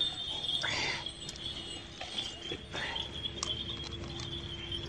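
A few light metallic clicks and clinks as pliers work a steel shackle on a dog's tie-out cable and chain. A steady high-pitched hum runs underneath.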